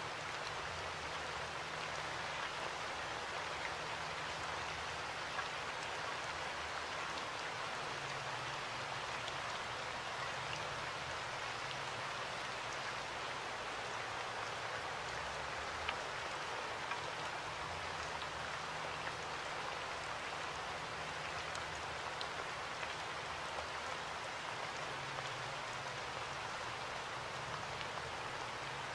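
A steady, even hiss like rain, with a few faint ticks.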